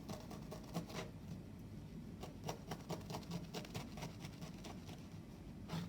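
Knife blade chopping through natural hemp rope and striking the surface beneath: a string of short, sharp knocks and clicks at uneven spacing, the loudest near the end.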